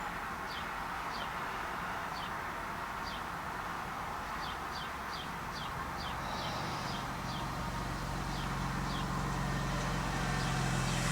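A small bird outside chirping over and over in short, high, downward notes. From about six seconds in, a lawnmower engine is heard running through the open window, growing louder toward the end.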